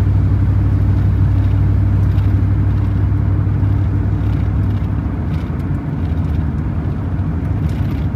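Car driving, heard from inside its cabin: a steady low engine hum under road and tyre noise, the hum changing about five seconds in.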